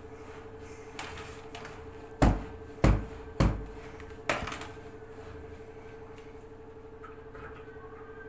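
A plastic laundry basket being handled and knocked: three loud thumps about half a second apart, then a softer fourth one, over a steady hum.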